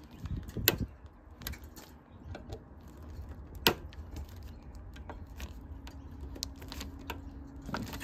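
Screwdriver tightening the screws on the terminal block of an air conditioner's outdoor unit: scattered sharp metallic clicks and scrapes, the loudest about three and a half seconds in. A screw terminal that was coming loose is being snugged up.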